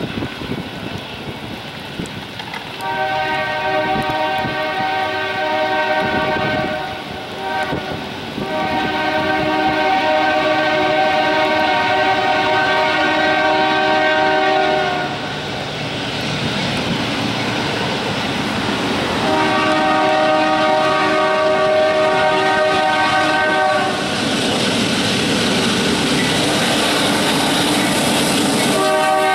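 A Union Pacific GE AC4400CW diesel locomotive sounds its multi-chime air horn for a grade crossing, in long blasts of several seconds each with short pauses between. In the last few seconds the rumble of the approaching locomotives and train grows louder.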